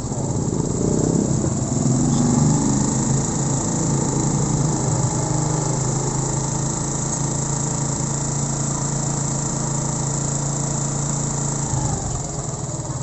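Suzuki Smash 115's single-cylinder four-stroke engine running at idle while its carburetor air screw is adjusted with a screwdriver. The engine speed wavers in the first few seconds, then holds steady, and drops near the end.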